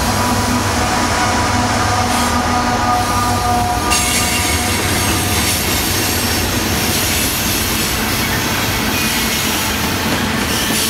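Freight train cars rolling past on curved track: a loud, steady rumble of steel wheels on rail with squealing wheel tones for the first few seconds, turning into a brighter, hissier rush at about four seconds in.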